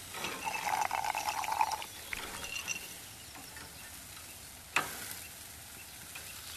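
Food sizzling on a barbecue grill: a steady crackling hiss, busier and louder in the first two seconds, with one sharp click a little past the middle.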